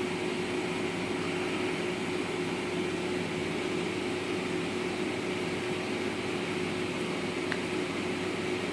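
Steady mechanical hum and hiss with one constant low tone, with a faint click late on.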